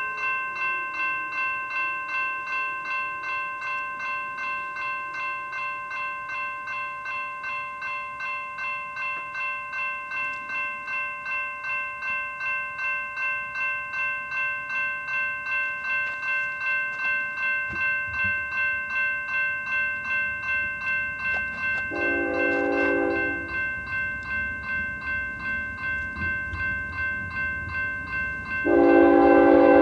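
Level-crossing warning bell ringing in an even, pulsing rhythm throughout. The low rumble of an approaching freight train builds from about halfway. The lead GE ES44C4 locomotive's horn sounds one short blast about two-thirds of the way through, and a louder blast starts near the end.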